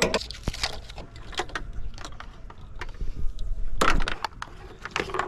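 Irregular clicks, knocks and clatters of parts or tools being handled, loudest a little before four seconds in.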